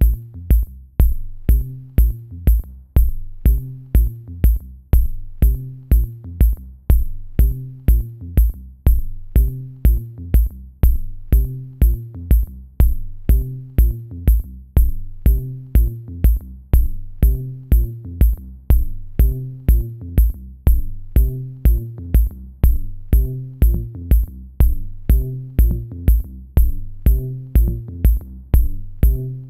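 Electronic background music with a steady drum-machine beat, about two kicks a second, over a bass line and high ticking percussion.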